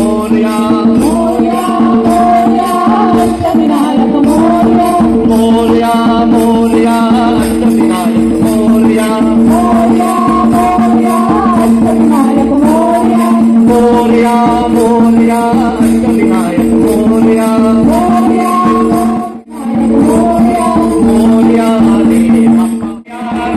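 Group devotional singing over a steady held drone, with hand-clapping, a drum and jingling percussion keeping a steady beat. The sound drops out briefly twice near the end.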